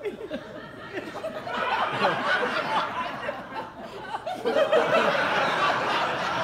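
Audience laughing in a large hall, the laughter swelling about a second and a half in and again, louder, about four and a half seconds in.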